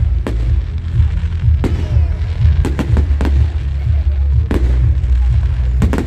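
Fireworks going off: about ten sharp bangs and pops at irregular intervals, over a continuous low rumble.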